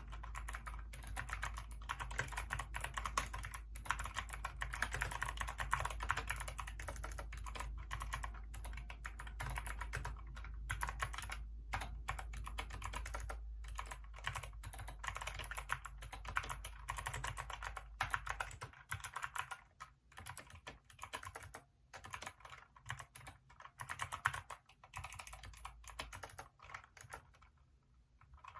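Typing on a Hacker K611 mechanical keyboard with Kailh optical switches: a fast, continuous run of key clicks that thins to slower, separate keystrokes about two-thirds of the way through, then stops shortly before the end.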